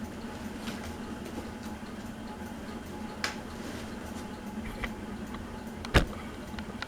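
Harbor Breeze Palm Breeze ceiling fan running with a steady motor hum. A light click sounds about three seconds in and a sharper, louder click near the end.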